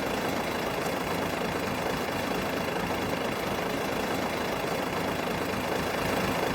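Motor vehicle engine running steadily, an even low rumble with no change in speed.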